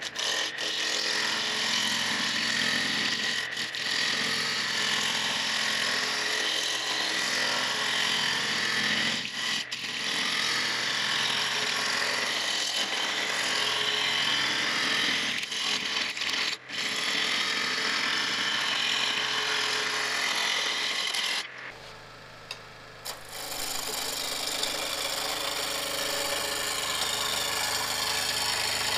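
Gouge cutting a cherry blank spinning on a Robust wood lathe: a loud, steady rushing cut as shavings fly off, broken by a few momentary gaps. There is a short lull about three-quarters of the way through before cutting resumes.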